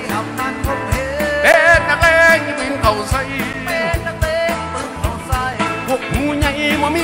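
Live band music: a steady drum beat under a bass line, with a wavering melody line carrying strong vibrato.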